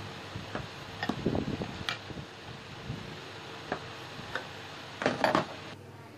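Scattered metal clinks and taps of wrenches on the threaded shaft and nut of a homemade sanding drum as the nut is tightened, with a louder clatter near the end as a tool is laid down on the wooden bench.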